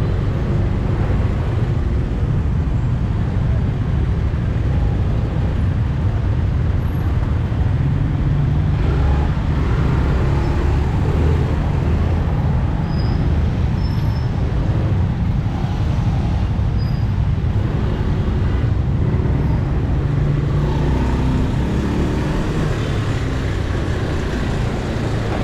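Steady street traffic noise, a continuous low rumble of passing vehicles with no single event standing out.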